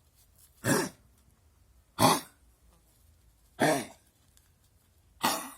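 Pet dog coughing: four harsh coughs, about one and a half seconds apart, in a bout of coughing whose cause the owner does not know.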